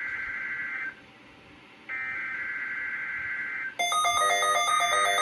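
NOAA Weather Radio SAME digital header bursts: one burst of screechy data tones ends about a second in and a second runs for nearly two seconds. Near the end, a louder electronic alert tone of several pitches in a repeating pattern starts.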